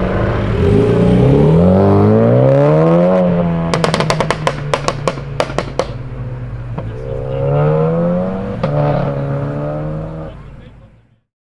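A 2018 BMW X1 with a Guerrilla aftermarket exhaust being revved: the engine note climbs for a few seconds and drops, then a rapid string of sharp crackles and pops as the revs fall off. A second, shorter rev ends in one more pop before it settles to idle and fades out near the end.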